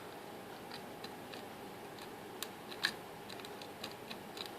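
An Abus XP10 lock being picked: faint, irregular clicks of the pick and tension wrench against the pins and warding, with one louder click a little under three seconds in. A faint steady air-conditioner hum lies underneath.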